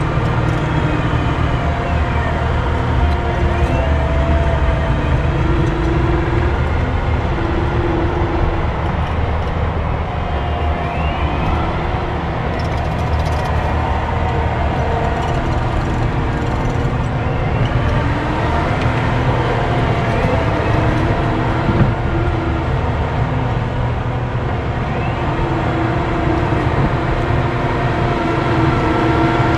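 Excavator's diesel engine running steadily under working load, with pitched tones that rise and fall every few seconds as the machine works.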